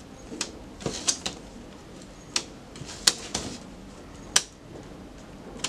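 Stiff cardstock being folded and pressed along its score lines on a plastic scoring board: a series of sharp, irregular clicks and taps, about eight in all.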